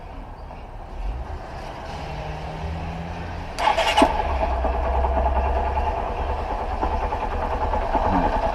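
Honda CG Fan 125's single-cylinder four-stroke engine, freshly fitted with a new cam chain, being cranked and catching about three and a half seconds in, then running steadily.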